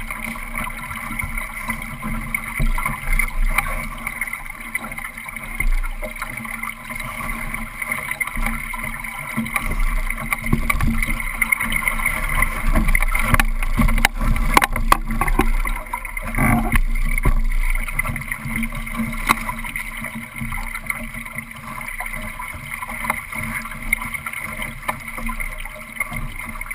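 Water rushing and slapping along a Solo sailing dinghy's hull under way, with wind buffeting the microphone. A cluster of sharp knocks and clatter comes about halfway through as the helmsman crosses the boat to tack.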